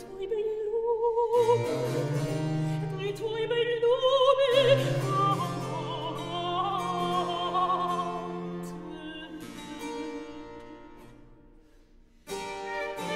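Classical-style background music: an operatic voice with vibrato over harpsichord. It fades out near the end, and another piece starts just before it closes.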